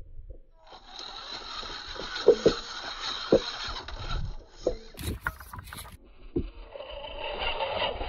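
RC rock crawler's motor and drivetrain whining as it crawls over granite boulders, with several sharp knocks of its tyres and chassis against the rock. There is a short burst of hiss about five seconds in, and the whine grows louder near the end.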